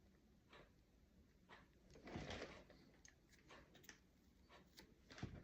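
Near silence, with a few faint clicks and a soft rustle about two seconds in, from parts and packaging being handled.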